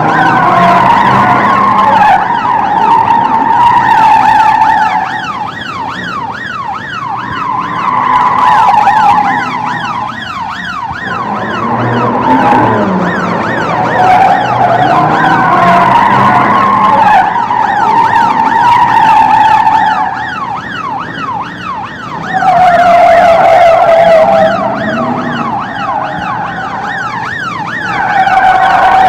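Police car sirens in a chase, several overlapping, with quick repeated rising yelp sweeps over a lower wailing tone, along with car engines and screeching tyres. The sound swells and fades every few seconds as the cars pass.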